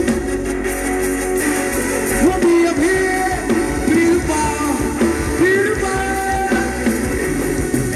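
A live band playing Thai ramwong dance music, with guitar and a sung melody line.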